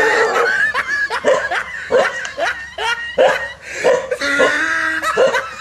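Laughter: a long, even run of 'ha' bursts, about three a second.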